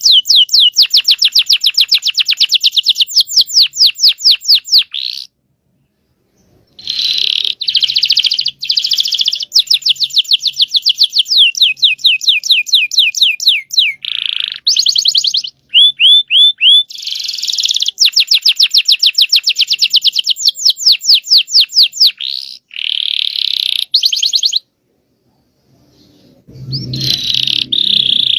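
Domestic canary singing long runs of fast trills and repeated rolled notes, breaking off briefly twice. A low rumbling noise sits under the song near the end.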